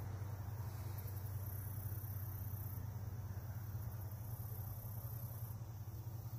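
Outdoor ambience: high-pitched insect buzzing that swells and fades in stretches of a second or two, over a steady low hum.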